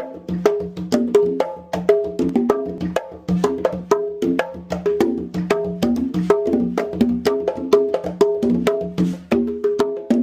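Conga drums played by hand in a fast, continuous rhythm: sharp slaps and open tones at several pitches, with a steady low drum tone underneath.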